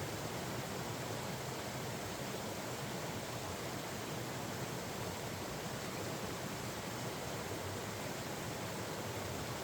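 Steady rushing of a flowing mountain stream.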